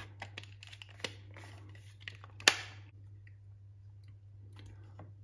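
The white plastic housing of a Soma Smart Shades 3 motor is handled as its front cover is fitted. There is a run of small plastic clicks and knocks, then one loud sharp click about two and a half seconds in, and softer rubbing near the end, over a faint steady low hum.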